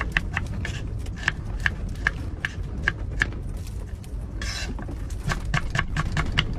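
Light clicks and clinks of kitchen utensils and dishes, evenly spaced at about two or three a second, with a short scraping hiss about four and a half seconds in, over a steady low rumble.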